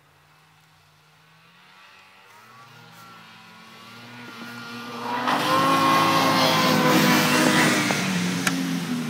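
Snowmobile engine running hard, growing steadily louder and rising in pitch as it approaches, loudest from about five to eight seconds in, then easing off slightly.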